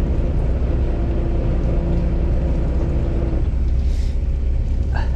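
Fishing boat's engine running with a steady low rumble and a steady hum over it; the hum stops about three and a half seconds in.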